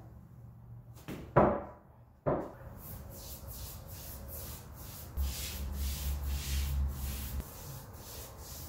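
Two knocks about a second apart as a wooden board is set down, then a foam brush rubbing wood stain onto a raw spruce board in quick back-and-forth strokes, about three a second.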